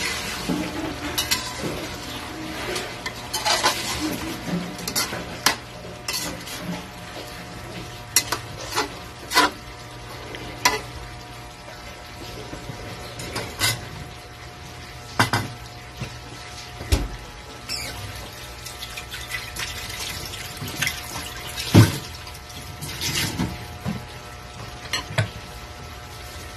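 Metal spatula clinking and scraping against a wok as pork simmering in sauce is stirred, in scattered short strokes. A low sizzle from the simmering sauce runs underneath.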